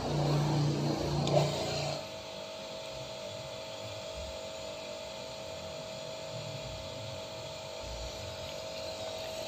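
Mollar HPW500 500-watt pressure washer running while its pump has not yet started drawing water. A louder low hum drops about two seconds in to a quieter steady tone that holds.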